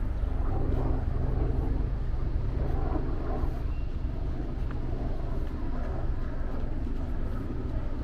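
Outdoor city park ambience: a steady low rumble with a faint murmur of distant voices.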